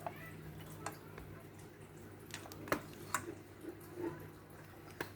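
Scattered light clicks and taps from handling a product and its packaging, about seven at uneven intervals, over a steady low hum.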